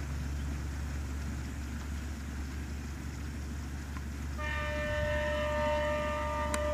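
A railcar's horn sounds one long blast of several tones together, starting about two-thirds of the way in, over a steady low rumble.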